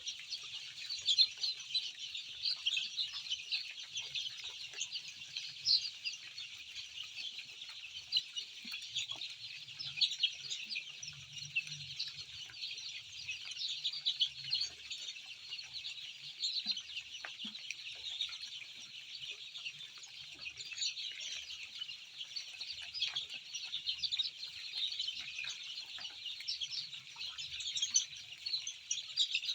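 A large flock of young chicks cheeping without pause, many overlapping high chirps forming a dense chorus.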